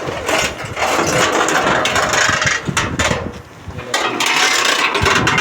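A motor engine running loudly in two long stretches, with a short drop in level a little past three seconds in.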